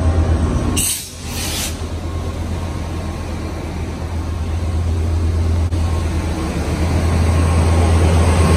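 Metrolink diesel locomotive idling at a station stop, a steady low drone that grows louder near the end as it is approached. A short hiss sounds about a second in.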